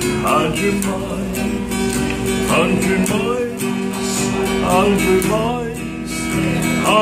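Acoustic guitar strummed steadily, with a man singing along in held, wavering notes over the chords.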